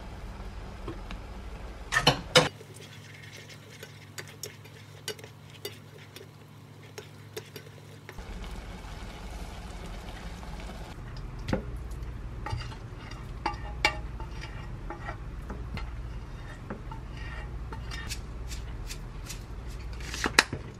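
A spoon stirring thick oatmeal porridge in a saucepan, with scattered sharp clinks of the spoon against the pot, the loudest about two seconds in and near the end.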